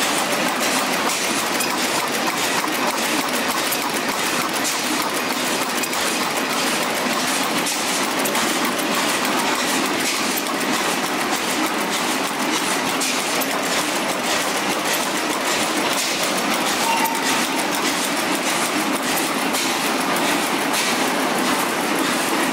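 Vintage stationary engines running together in a machinery hall: a steady, dense mechanical clatter of rapid ticks and knocks.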